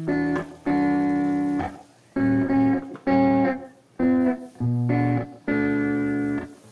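Background music: a guitar playing chords in short, separate phrases, each cut off before the next, with no singing.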